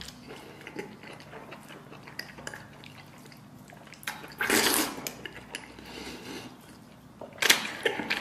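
Eating sounds: chopsticks clicking against a bowl and plate and wet chewing of braised pork elbow skin, with a louder wet burst about four and a half seconds in and a sharp clink about seven and a half seconds in.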